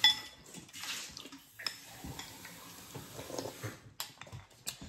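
A spoon clinks sharply on a ceramic bowl, then a kitchen tap runs steadily at the sink under small clinks of spoons and chopsticks on bowls, about four seconds in.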